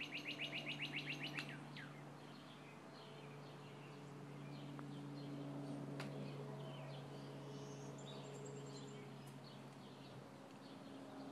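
Small songbirds chirping: a fast trill of about eight sharp notes a second opens, then scattered short chirps follow. A steady low hum runs underneath.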